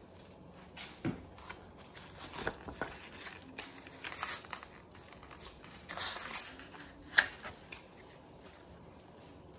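Packaging being handled, with irregular crinkling and rustling and scattered light clicks and knocks; the sharpest click comes about seven seconds in.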